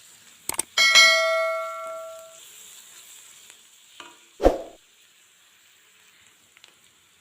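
Onions frying in a kadai with a faint sizzle while being stirred; about a second in a metal spoon strikes the pan with a loud clang that rings for over a second, and a dull knock follows about four and a half seconds in.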